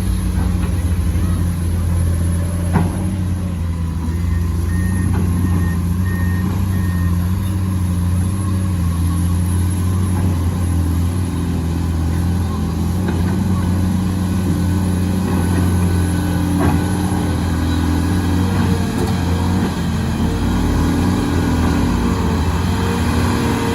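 Heavy diesel engine running steadily at a constant low drone. About five seconds in comes a short run of four evenly spaced high beeps.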